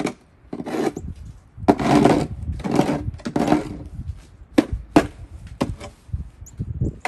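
Snow shovel scraping and crunching through packed snow in several strokes, each lasting up to about a second, with a few sharp knocks in between.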